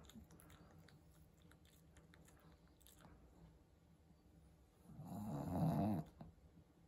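Pekingese dog snoring in its sleep: after a quiet stretch, one loud rasping snore about five seconds in, lasting about a second.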